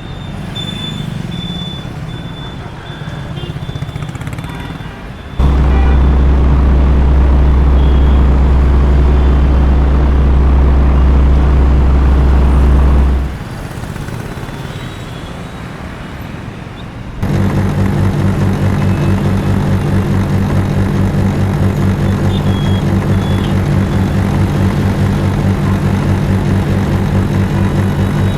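Heavy diesel engines running steadily, in several spliced clips that cut in and out abruptly. A loud low hum runs from about five seconds in to about thirteen seconds in, and a fast, even, pulsing engine note runs from about seventeen seconds to the end.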